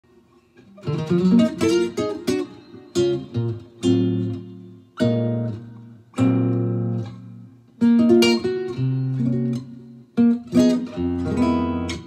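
Cordoba Stage nylon-string electric guitar played through a Fender Deluxe amplifier with a clean tone: jazz chords and short single-note runs, each chord ringing and dying away before the next phrase.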